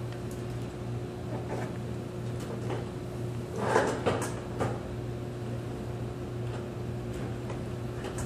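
Handling noise while the 3Doodler pen's power cable is being connected: scattered light clicks, and about three and a half seconds in a brief burst of rustling and knocks as a shirt sleeve brushes close past the microphone. A steady hum runs underneath.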